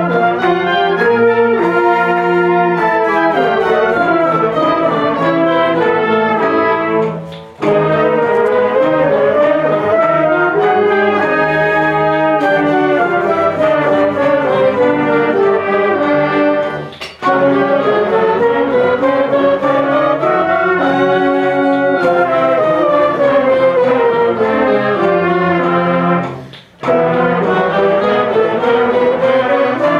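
Concert band with brass prominent playing sustained chords in long phrases, the pitches moving up and down in slow arcs. The sound drops out briefly three times, about every nine seconds, as the players stop for breath and come back in together.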